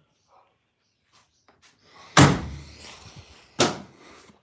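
A classic Chevrolet's car door shut with a heavy slam about two seconds in, followed by a second sharp knock about a second and a half later.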